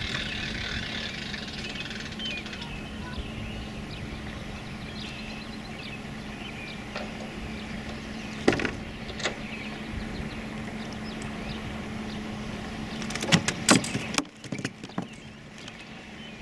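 Steady hum of a boat motor running, with a few sharp knocks and clicks about halfway through and a cluster of louder knocks near the end.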